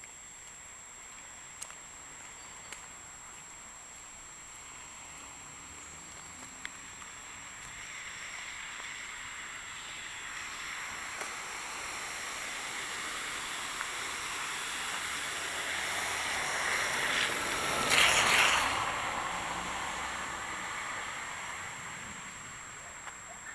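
A vehicle approaching along the street and passing by, its tyres hissing on wet asphalt; the sound builds slowly, is loudest about three quarters of the way through, then fades.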